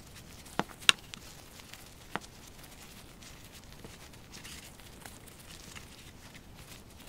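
Gloved hands working the hide off a squirrel carcass. Several sharp clicks come in the first two seconds, the loudest about a second in, followed by soft rustling of glove, fur and skin.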